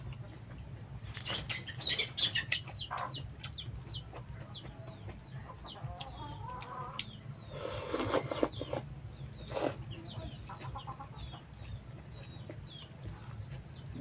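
Chickens clucking, with many short high chirps throughout. A few sudden close noises from handling a plastic tub and eating by hand break in, the loudest about eight seconds in.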